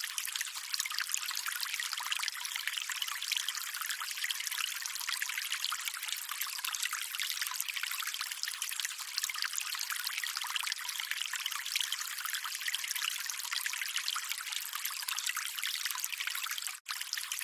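Calm running water, a steady trickling hiss with no deep rumble. It cuts out for an instant near the end.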